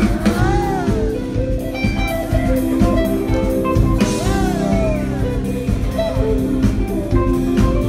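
Live rock band playing: electric guitars, bass guitar and drum kit, with notes that bend up and down in pitch twice.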